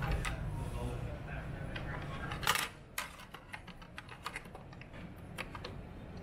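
Clicks, taps and a louder knock of small hard parts being handled, the knock about two and a half seconds in; a low background rumble drops away just after it.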